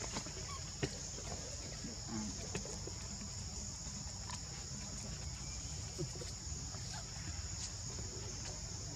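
Steady high-pitched buzzing of insects, with a low rumble underneath and a sharp click just under a second in.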